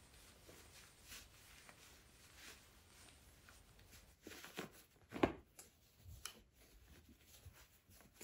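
Faint rustling of cotton fabric as a sewn face-mask piece is handled and turned right side out, with a few louder rustles between about four and five and a half seconds in.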